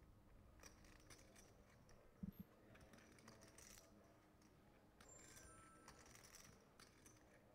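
Faint clicking of clay poker chips being fingered and shuffled in a player's hand at the table, with a short soft thump about two seconds in. About five seconds in, the action clock's faint electronic ding sounds, marking ten seconds left on the decision.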